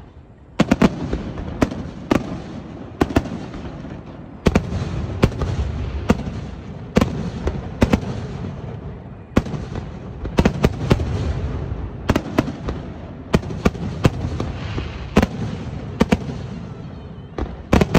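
Aerial firework shells bursting in an irregular volley, about one or two sharp bangs a second and often in quick pairs, each followed by a long rumbling echo.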